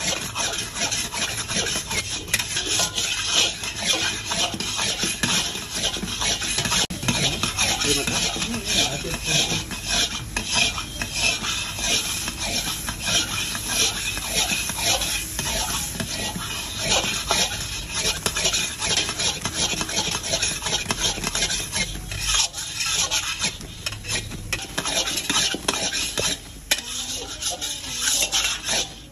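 Long metal spatula stirring and scraping a thick carrot kalakand mixture around a steel kadai, in quick continuous strokes against the pan.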